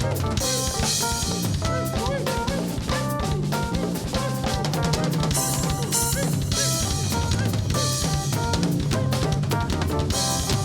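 A folk band playing with a full drum kit: a steady beat of kick and snare under a bass line and a wavering melody.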